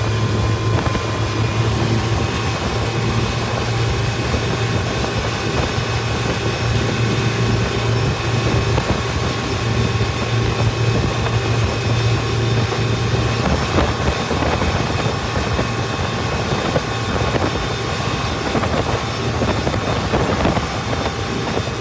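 Cummins QSB 6.7 inline-six turbo diesel of a 9 m speedboat running steadily at high speed, with rushing wind and spray. Its deep hum drops away about two-thirds of the way through while the rushing noise carries on.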